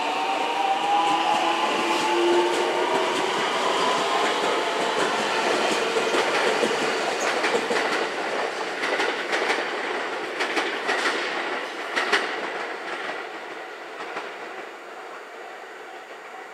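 521 series electric multiple unit passing: its traction motor whine rises in pitch in the first few seconds as the train accelerates, then the wheels clatter over rail joints, fading over the last few seconds as it runs away.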